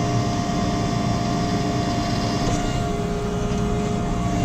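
JCB Fastrac 4220 tractor's diesel engine running steadily with a constant whine while its hydraulic spool turns a reversible plough over. The pitch of the whine shifts slightly about three seconds in.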